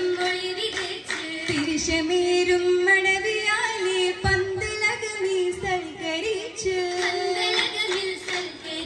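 Voices singing a Mappila song in unison for an Oppana dance, over a steady held note.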